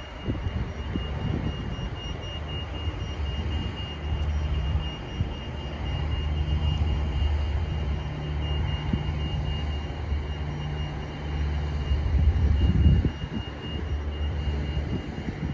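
Airport apron noise: a steady high-pitched whine over an uneven low rumble from running aircraft or ground equipment, the rumble swelling briefly near the end.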